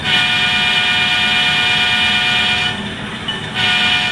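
Model diesel locomotive horn from a Tsunami sound decoder in an HO-scale BNSF C44-9W, played through the model's small speaker: one long blast of about two and a half seconds, then a short blast about a second later.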